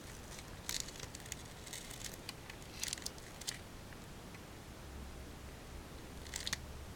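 Velcro (hook-and-loop fastener) rasping in short, sharp bursts: several in the first three and a half seconds, then one more near the end.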